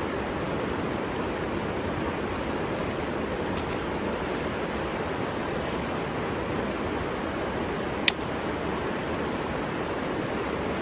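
River water rushing steadily, with a single sharp click about eight seconds in.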